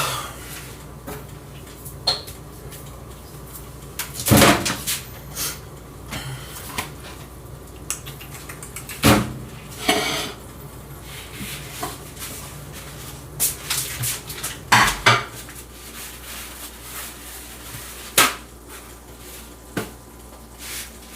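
Kitchen utensils and cookware clattering: scattered knocks and clinks of metal against pots and dishes while food is being cooked and served, over a steady low hum.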